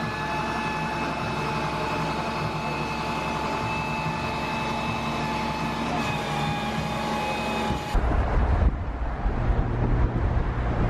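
Flatbed tow truck running steadily, with a steady high whine over its engine hum. About eight seconds in, it cuts to a loud, low road-and-wind rumble from a vehicle moving alongside the truck on a highway.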